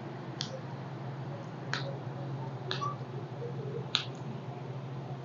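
Four short, sharp clicks, about one every second and a quarter, the last the loudest, over a low steady hum.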